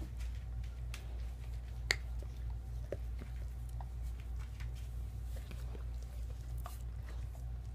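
Quiet room tone: a steady low hum with scattered faint clicks and one sharper click about two seconds in.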